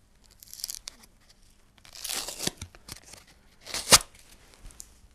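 Hands handling a thin glass-fibre backing disc and seizing wire, making a rustling, tearing sound about two seconds in and a sharp click about four seconds in.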